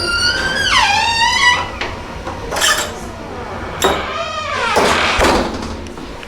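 A creaky door swinging on its Sargent door closer, creaking in squeals that slide down in pitch, with a few sharp knocks of the door and latch.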